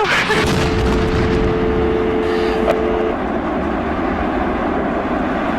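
A loud, steady roar of rushing noise, with a held two-note tone over it for about three seconds near the start.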